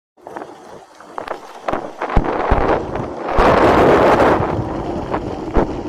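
Wind buffeting a moving camera's microphone, with several sharp knocks and rattles. It is loudest about halfway through.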